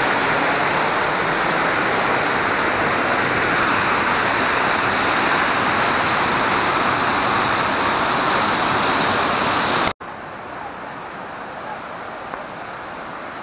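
Whitewater cascade rushing over rocks, a loud steady wash of water. It cuts off suddenly about ten seconds in, leaving a fainter steady rush.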